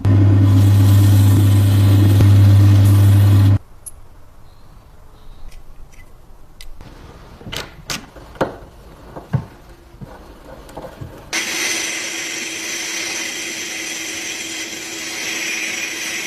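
An electric power tool runs loudly with a strong low hum and stops abruptly after about three and a half seconds. Scattered clicks and knocks of parts being handled follow. About eleven seconds in, a power tool starts again with a steadier, hissier sound that continues to the end.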